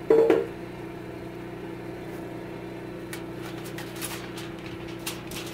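Enamelled lid of an electric roaster oven clanks as it is lifted off, with a brief ring, then aluminium foil crinkles a few times as it is peeled back. A steady hum runs underneath.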